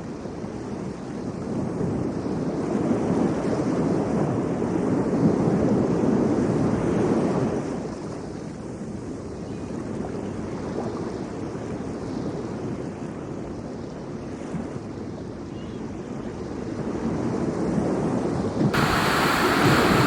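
Steady outdoor rushing noise that swells a few seconds in, eases off, then builds again. Near the end it suddenly turns brighter and hissier.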